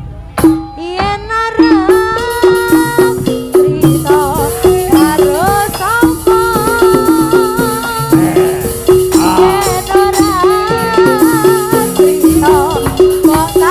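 East Javanese jaranan gamelan music played live: a steady, repeating pattern of struck pitched notes with drums beneath and a wavering, gliding melody line above.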